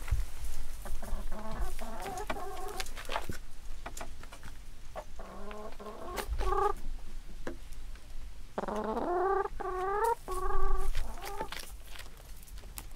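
Hens clucking and calling in several bouts of drawn-out, wavering calls while they dust bathe together in loose dirt, the strongest bout about nine seconds in.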